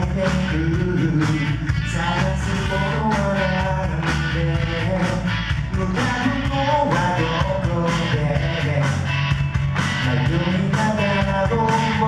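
Male vocalist singing a Japanese-language song live into a handheld microphone, over accompaniment with a steady drum beat and bass.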